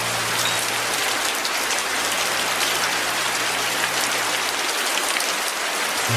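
Steady, dense rainfall: an even hiss of rain pattering on surfaces. A low held music note fades away in the first second or so.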